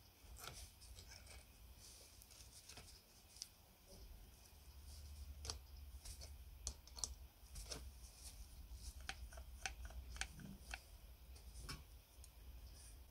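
Faint, scattered clicks and light metallic taps of small steel parts being handled, a coil spring worked onto a threaded rod, over a low steady hum. The clicks come thicker and a little louder in the second half.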